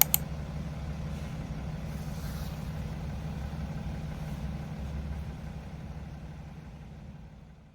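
A steady low engine-like rumble, with two sharp clicks at the very start, fading out over the last couple of seconds.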